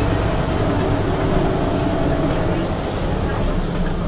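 Inside a Scania N94UB Omnidekka double-decker bus under way: steady engine drone and road rumble, with a faint wavering whine and a few light rattles of the body and fittings.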